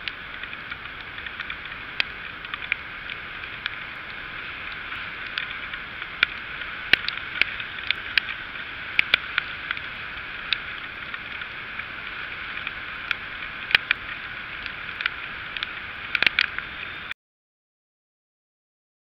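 Heavy rain striking a camera's microphone on a moving moped: a steady hiss of wind and rain with many sharp ticks of drops hitting the mic. It cuts off suddenly near the end.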